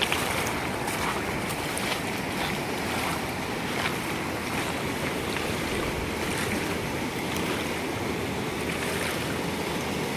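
Steady rush of a fast-flowing river over its stony shallows.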